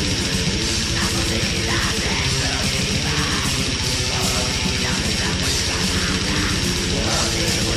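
Black metal demo recording: distorted electric guitars over very fast, steady drumming, played as one dense, unbroken wall of sound.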